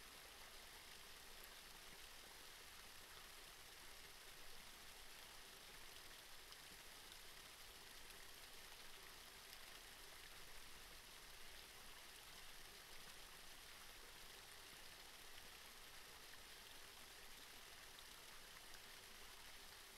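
Near silence: a faint, steady hiss of trickling water with tiny scattered drips.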